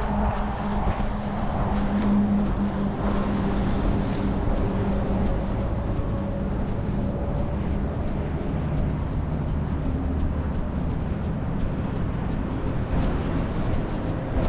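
Road traffic: a motor vehicle's engine hum with tyre noise, steady throughout.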